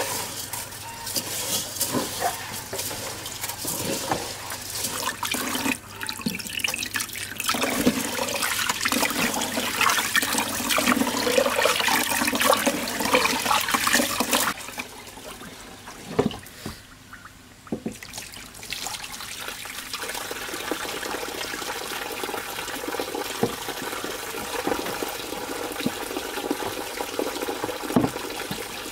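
Water from a tap running and splashing into a pot as rice is rinsed and stirred by hand. The splashing is loud for the first half, drops away for a few seconds past the middle, then settles into a steady run of the tap.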